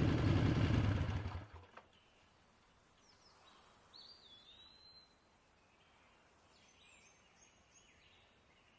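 Background music fading out over about a second and a half, then near silence with a few faint bird chirps.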